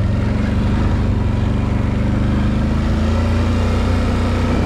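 Can-Am Renegade 850 ATV's Rotax V-twin engine running at a low, steady throttle while riding, its note rising slightly about halfway through.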